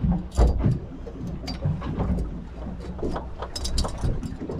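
Irregular clicks and knocks of a metal hook-remover working a tube lure's hook out of a barracuda's mouth against a fiberglass boat deck, the fish shifting under the hand. A steady low rumble of wind or the boat underlies it.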